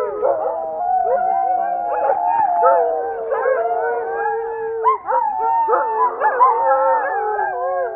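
A pack of sled dogs howling together, many voices overlapping and sliding up and down in pitch, with shorter yelps mixed in from about five seconds in.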